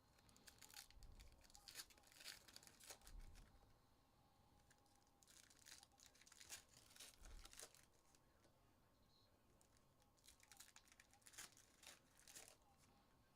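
Faint crinkling and tearing of trading-card pack wrappers being ripped open and handled, in three short spells of crackle.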